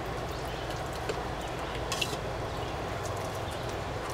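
Hands rubbing and pressing marinated raw chicken on a plastic tray: soft wet rubbing with one brief sharp squelch about two seconds in, over a steady low background hum.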